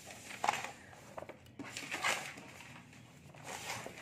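Paper and book pages rustling as they are handled, in several short rustles.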